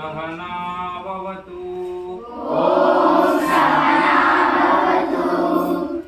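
Voices chanting a mantra together on a steady pitch: short syllables at first, then a louder, fuller long-held tone from about two and a half seconds in that breaks off near the end.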